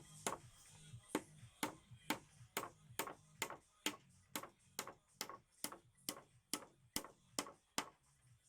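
Hammer striking steadily, about two blows a second, each with a short ring, stopping near the end; background music plays underneath.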